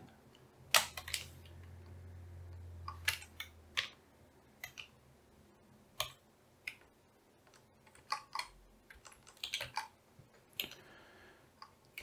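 Computer keyboard typing: a few irregular, spaced-out keystroke clicks with pauses between them.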